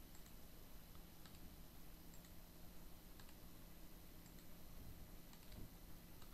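Faint, sparse clicks, about one a second, from working a computer mouse and keyboard, over a low steady hum.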